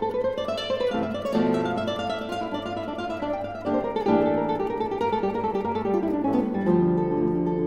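Background guitar music: plucked, ringing notes with a falling slide near the end.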